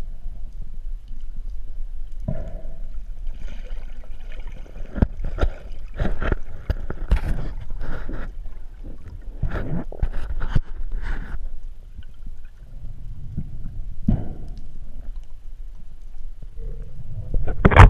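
Underwater rumble with irregular gurgling and knocking, then a loud sharp knock near the end.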